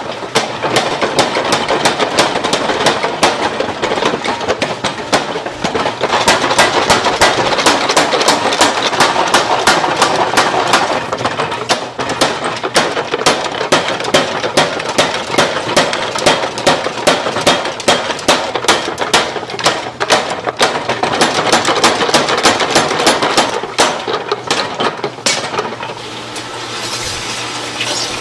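Rapid, regular striking, about four impacts a second, over a steady workshop noise; the striking thins out and stops near the end.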